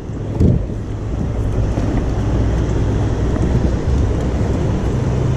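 Steady low rumble of fast-running water below a dam, with a single knock about half a second in.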